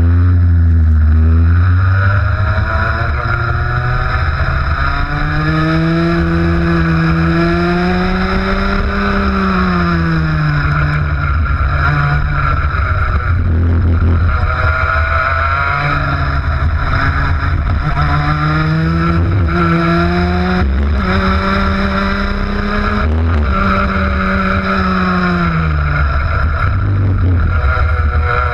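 ROK 125cc two-stroke kart engine at racing speed, heard from on board the kart. Its pitch climbs steadily on the straights and drops sharply when the driver lifts for corners, again and again, over a steady low rumble.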